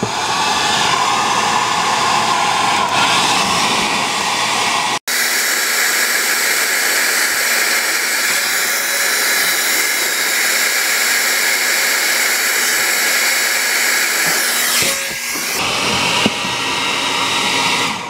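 Handheld hair dryer running steadily, blowing hot air into a refrigerator's freezer vents to melt the ice built up in them. The sound cuts out for an instant about five seconds in and comes back with a changed tone. It shifts again around fifteen seconds in as the dryer is moved.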